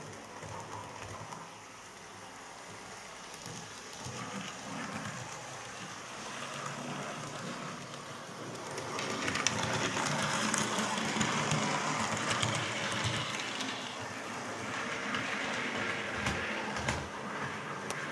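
Model railway locomotive running along the layout's track: the motor whirs and the wheels rattle and click over the rail joints. It gets louder about halfway through as the loco runs close by, then eases off.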